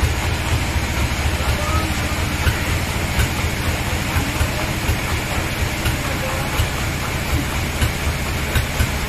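Sawmill machinery running steadily with a low, rapidly pulsing drone, with faint voices over it.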